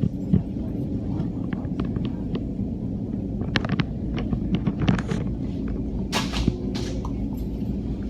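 Steady low rumble of a train, with scattered light clicks and knocks and a brief rush of noise about six seconds in.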